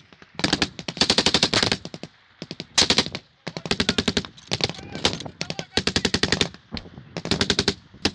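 Automatic gunfire in repeated bursts, each a rapid string of shots lasting from about half a second to a second and a half, with short pauses between bursts.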